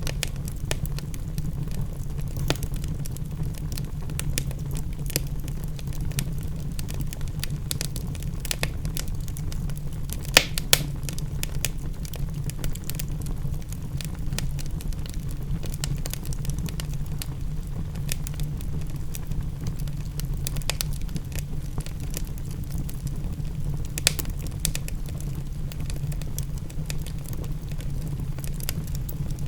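Wood fire crackling in a fireplace, with frequent small snaps and a few louder pops about ten seconds in, again just after, and near the end, over a steady low rumble.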